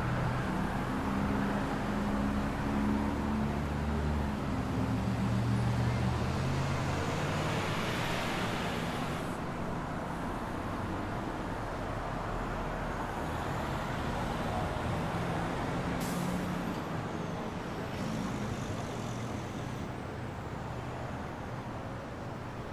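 City street traffic: a heavy vehicle's engine runs close by for the first several seconds, under a swelling rush of traffic noise that cuts off abruptly about nine seconds in. A single sharp click comes about sixteen seconds in.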